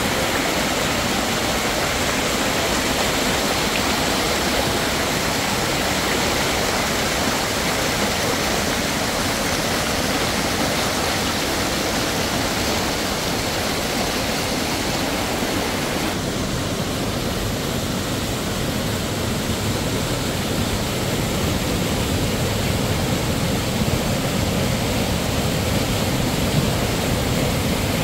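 Fast-flowing mountain stream rushing over rocks: a steady wash of water noise. About halfway through it turns duller, with less hiss and more low rumble.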